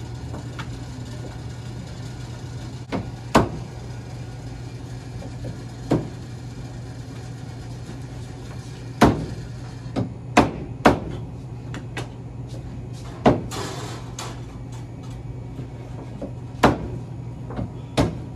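A butcher's heavy knife chopping through bone-in chicken leg quarters on a cutting board, about a dozen sharp, irregular chops, over a steady low hum.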